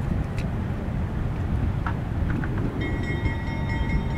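Steel mill train on yard track: a steady low rumble with a few short clanks. About three seconds in, a high-pitched metallic squeal sets in and holds.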